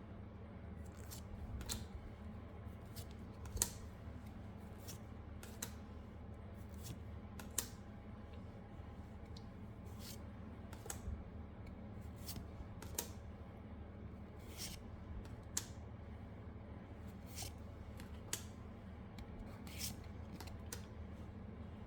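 Pokémon trading cards being handled: irregular short snaps and flicks, about one every second or two with a few louder ones, over a steady low hum.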